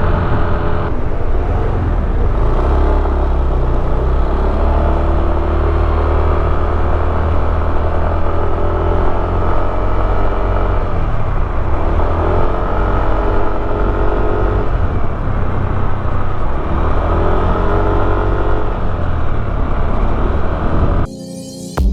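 Yamaha X Force 155 scooter's single-cylinder engine running, its pitch rising and falling several times with the throttle. The engine sound cuts off about a second before the end.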